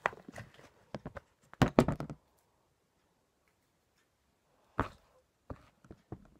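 A plastic mixing bowl and spatula knocking and clunking as the bowl of glitter slime is handled on a plastic tabletop, with the loudest run of clunks about two seconds in. There is a pause, then one knock near five seconds and a few small clicks near the end.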